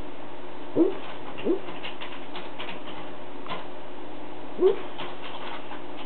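A sleeping husky sleep-barking: three short, muffled woofs, two close together about a second in and one more near the end.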